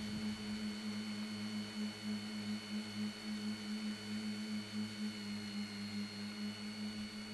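Tricopter's three RCMC 2212 brushless motors spinning 10x5 propellers in flight, a steady pitched drone that wavers slightly, with a thin high whine above it.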